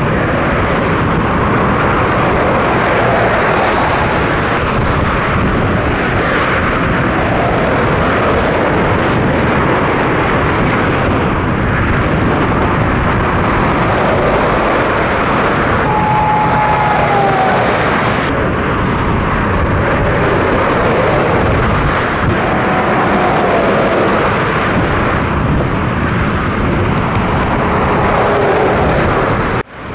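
Steady rush of fast motorway traffic, with Scania semi-trucks and cars passing close by: tyre and engine noise. The sound breaks off for an instant near the end.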